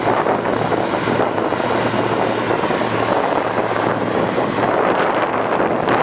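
John Deere T670 combine harvester running under load while threshing, a steady dense mechanical noise with a low steady hum beneath it. Wind buffets the microphone.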